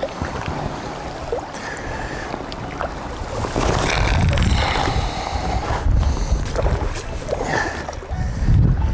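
Wind buffeting the microphone, rising and falling in gusts, over small waves lapping against rocks.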